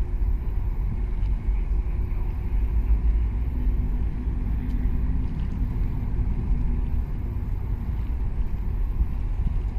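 Steady, loud low rumble with water and wind noise over open harbour water; a faint hum rises briefly about halfway through.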